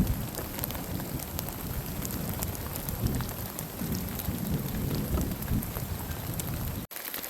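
Heavy rain pouring down, with many drops pattering on nearby surfaces and low rumbling swells underneath. The sound cuts abruptly to a lighter patter just before the end.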